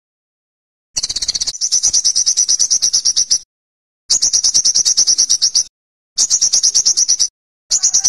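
Olive-backed sunbird singing: high-pitched rapid trills of about ten notes a second, in bursts of one to two and a half seconds separated by short silences. A fourth burst starts near the end.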